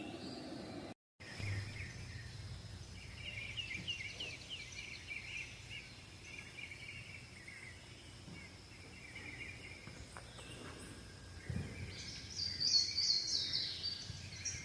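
Wild birds chirping and singing in repeated short trills over quiet outdoor ambience, with a louder run of high calls near the end.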